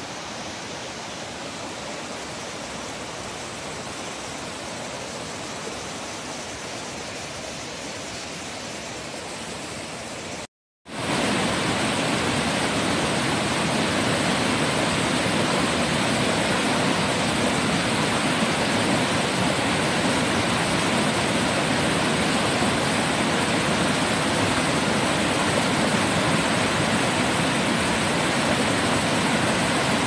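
Rushing water of a small river tumbling over boulders, a steady even rush. It is fainter at first, drops out briefly about ten seconds in, and comes back louder and closer.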